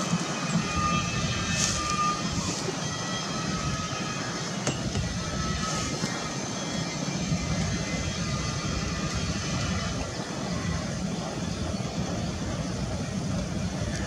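Steady low outdoor background rumble, with no clear sound from the bird.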